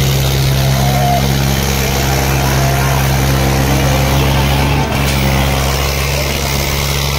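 Diesel tractor engine running steadily at constant speed close by, a deep even drone.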